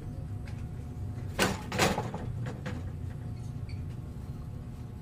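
Two brief knocks about half a second apart, a little over a second in, followed by a few faint ticks, over a steady low hum.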